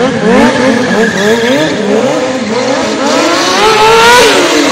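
Sport motorcycle engine revved hard in quick throttle blips, rising and falling about twice a second, then pulled into one longer climb in revs that drops sharply near the end. Tyre squeal from the sliding rear tyre runs underneath.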